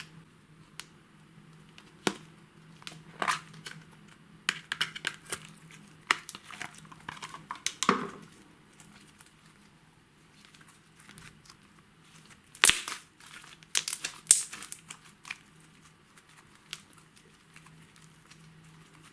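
Hands working slime, giving irregular clusters of sharp pops and crackles, loudest in two bursts, around the middle and again about two-thirds of the way through.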